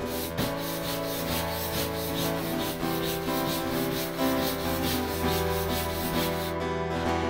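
Brass wire brush scrubbing rapidly back and forth over flame-charred wood, scouring off the burnt surface to bring out the grain.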